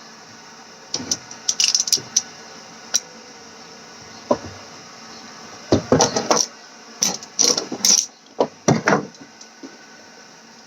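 Irregular clicks, knocks and rattles of a hacksaw and pliers being handled and set against a golf ball, coming in short clusters.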